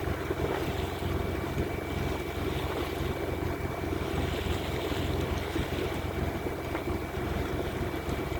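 Sailing yacht under way at speed: steady wind buffeting the microphone and water rushing along the hull, over a constant low hum.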